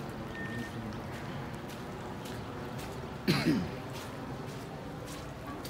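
Footsteps on wet gravel with a steady outdoor background hiss, and one short, louder sound about three seconds in that falls in pitch.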